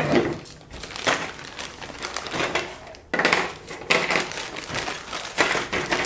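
Handling noise from plastic dishwasher rack-adjuster parts being worked on the wire top rack: rustling and crinkling in three bursts, about a second in, from about three to four seconds in, and near the end.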